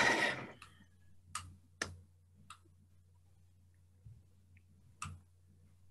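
A few short, faint clicks, four in all and spaced irregularly, over a low steady hum during a pause in speech.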